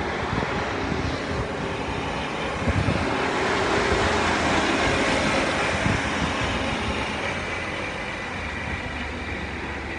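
Heavy Mercedes-Benz truck's diesel engine running with street and road noise, growing louder around the middle and then easing off.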